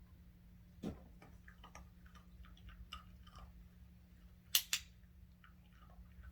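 A run of light clicks and ticks, then two sharp snaps in quick succession about four and a half seconds in.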